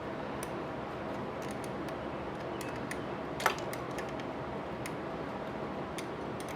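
Scattered small clicks of a hand tool tightening the negative battery terminal bolt, with one louder click about three and a half seconds in, over a steady background hiss.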